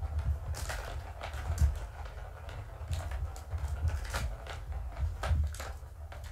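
Plastic ball clicking and rattling around the track of a Catit ball-track toy as a kitten bats at it: irregular clicks and knocks, some in quick runs, over a low steady hum.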